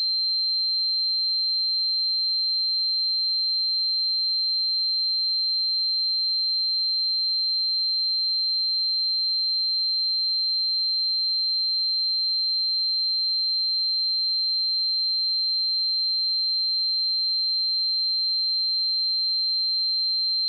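A pure 4138 Hz sine-wave test tone, one steady high-pitched pitch held at constant level without change.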